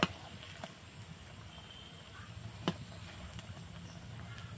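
Spring rolls deep-frying in oil over medium heat in a metal kadai: a steady, quiet sizzle, with a couple of sharp taps of a metal spatula against the pan, the clearest near the middle.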